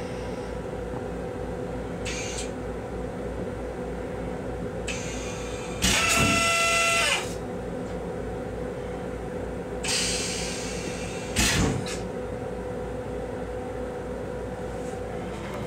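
Steady hum of a Metro-North M7 railcar, heard from inside its small restroom. Short hisses come and go over it. About six seconds in there is a loud pitched tone lasting just over a second, and near the end of that stretch a brief louder noise.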